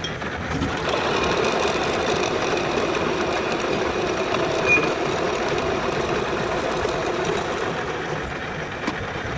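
Lathe running steadily, louder from about a second in and easing off near the end, with one brief high squeal near the middle.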